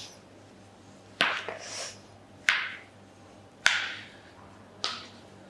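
Four sharp cracks about a second apart, each trailing off in a short hiss, from the thrusts of a chiropractic adjustment.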